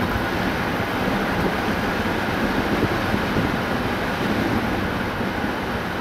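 A car driving at a steady speed: even rumble of tyres on the road.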